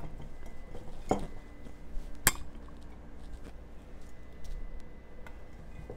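Cauliflower florets being put into a large glass jar, knocking against the glass and the vegetables already inside. There is a dull knock about a second in, a sharp clink a little past two seconds, then a few faint taps.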